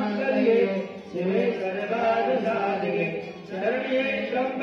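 Mantras for the havan offerings of a Navchandi yagna, chanted by several voices in unison, in phrases of a couple of seconds with short breaks between them.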